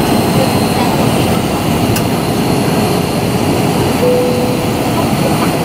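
Steady cabin noise inside an Airbus A319 airliner seated over the wing during descent: the jet engines and the rush of air along the fuselage make an even, loud roar.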